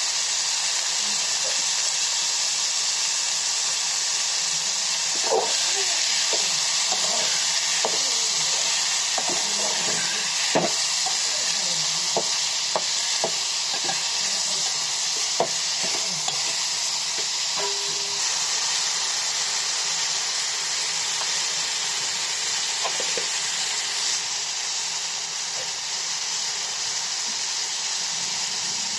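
Food frying in hot oil in a pan with a steady sizzle, while a spoon or spatula stirs and knocks against the pan several times, mostly between about 5 and 16 seconds in.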